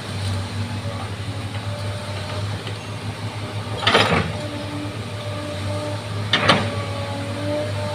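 Bulldozer's diesel engine running steadily, with two sharp metallic clanks about four seconds in and again near six and a half seconds.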